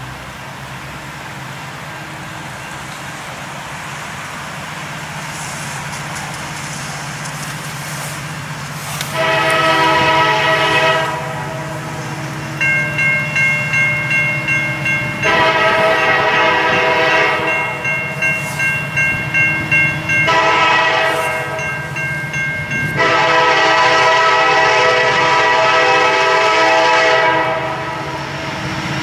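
Approaching diesel freight train led by an EMD SD70M: engine rumble growing louder, then a series of long horn blasts starting about nine seconds in, typical of a grade-crossing signal. A bell rings rapidly through the middle of the horn sequence.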